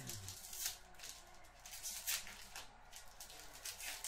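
Foil trading-card pack wrapper crinkling as it is torn open by hand, in a few short crackly rustles.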